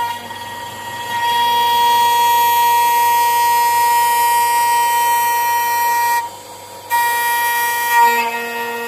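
CNC router spindle running at high speed, its cutter milling a metal block, giving a steady high-pitched whine. The whine drops out briefly a little past six seconds in, then comes back.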